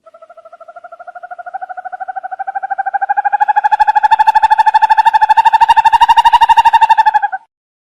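An owl's trilling call: a fast, even run of short notes, about a dozen a second, that swells from faint to loud and rises a little in pitch over about seven seconds, then stops abruptly.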